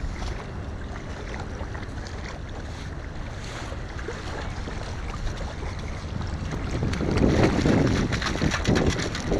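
Wind buffeting the microphone over small waves washing onto the sand. From about seven seconds in, a perforated metal sand scoop is sloshed back and forth in shallow water to sift out the sand, getting louder with splashing and gritty clatter.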